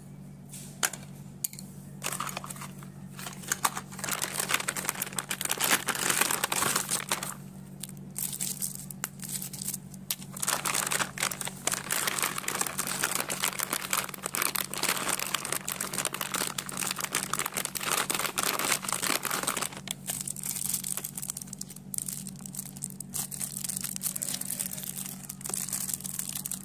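Plastic packaging crinkling and rustling in irregular bursts as stationery is handled, over a steady low hum.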